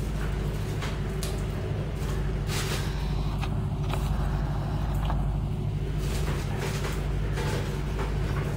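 A steady low hum runs throughout. Over it, a plastic bag rustles in short bursts and there are a few small clicks as green long beans are handled.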